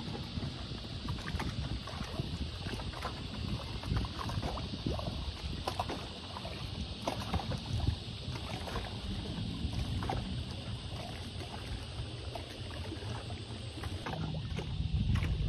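Choppy high-tide water lapping against a floating pontoon, with many small irregular splashes, over a low wind rumble on the microphone.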